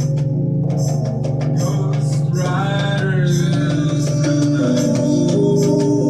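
Experimental live music: a steady low drone under regular percussion strikes, with a pitched line that glides and wavers from about two and a half seconds in.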